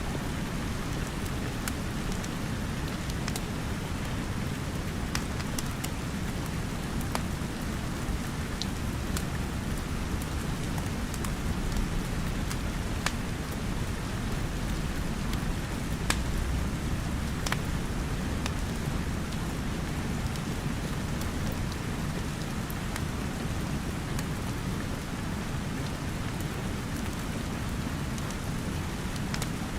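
Steady rain with a deep low rumble, and sparse sharp crackles and pops from a wood fire scattered through it.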